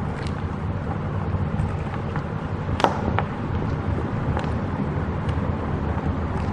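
Light clicks and knocks of a plastic camera connector and ceiling tile being handled, the sharpest about three seconds in, over a steady low rumble of background noise.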